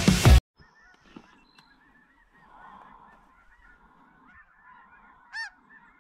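Loud music cuts off just after the start, leaving a faint chorus of many snow geese calling, short high overlapping yelps, with one nearer, louder call about five seconds in.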